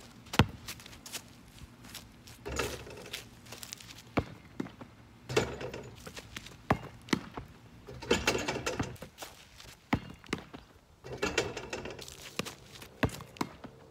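A basketball thudding and bouncing, heard as sharp single knocks. Between them come stretches of running steps and clattering as the portable hoop's rim and backboard are hit during repeated dunk attempts.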